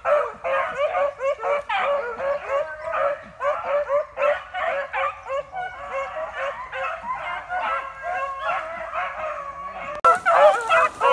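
A pack of beagles baying on a rabbit's trail, many short overlapping barks and howls in quick succession.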